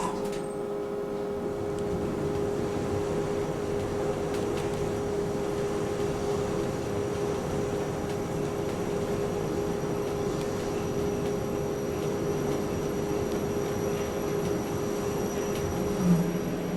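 Kone MonoSpace lift cab travelling, with a steady hum made up of several held tones. A short thump comes near the end.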